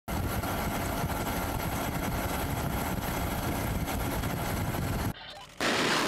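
A steady, loud rumbling noise with a choppy low end, then, after a half-second break about five seconds in, a warship's anti-ship missile launching, its rocket motor's roar starting abruptly and holding steady.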